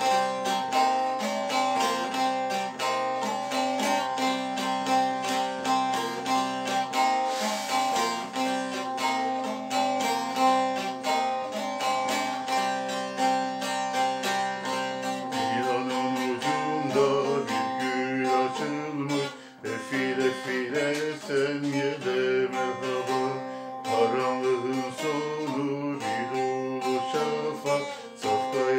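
Instrumental introduction to a Turkish folk song: a plucked string instrument strummed rapidly and evenly over a held drone note. About halfway through, a second, gliding melody line joins in.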